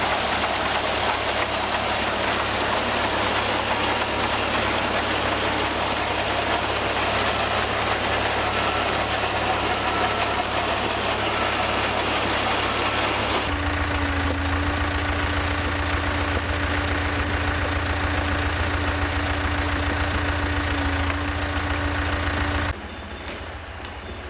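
Engine-driven machinery running steadily with loud mechanical noise. About halfway through, the sound changes abruptly to a steadier engine drone with a constant hum, and near the end it drops suddenly to a quieter level.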